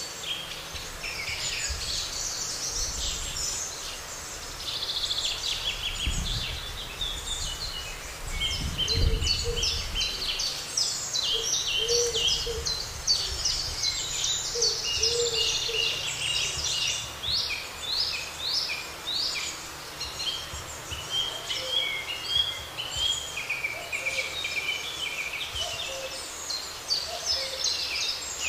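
Several songbirds singing at once, a dense chorus of quick chirps and trills. A few short lower notes sound in the middle and later on, and low rumbles come about six and nine seconds in.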